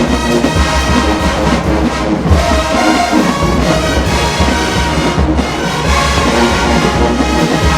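Marching band playing loudly: a full brass section of trumpets, trombones and sousaphones over a pounding low drum line.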